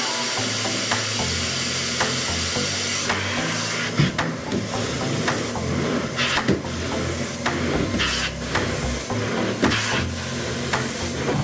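Truckmount-powered carpet-cleaning wand pulling water and air through its vacuum hose: a steady hiss, with louder rushes of suction about six, eight and nine and a half seconds in and short knocks scattered through it.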